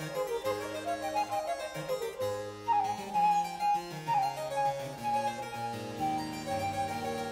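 Harpsichord and flute playing the Allegro of a Baroque sonata in D major: quick running harpsichord notes, with long held high notes over them from about three seconds in.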